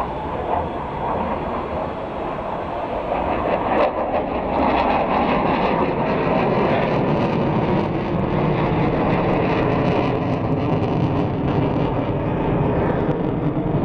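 MiG-29 fighter jets' twin turbofan engines, a steady jet roar from the aircraft overhead that grows louder about four seconds in.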